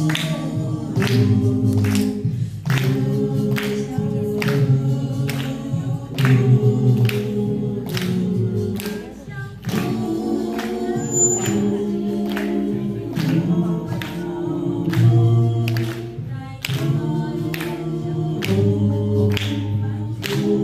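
Vocal group singing a Chinese-language song in harmony, over a steady beat of sharp percussive hits about twice a second.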